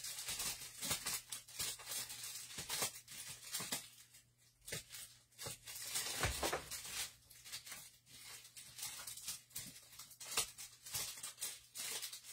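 Packaged rubber stamp sets being rummaged through by hand: irregular rustling and light clicks, with a brief lull partway through.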